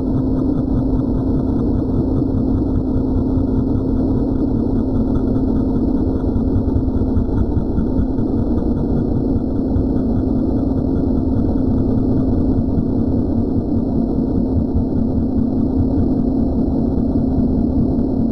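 A loud steady mechanical drone with a constant hum, like a motor running without a break.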